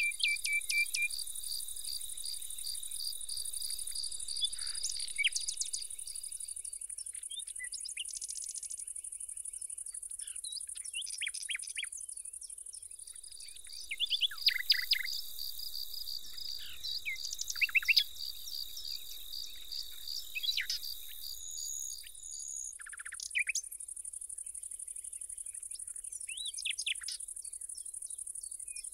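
Outdoor nature chorus: insects trilling steadily and high, with a faster pulsing insect chirp coming and going, and many short bird chirps scattered throughout, in a louder cluster about halfway through.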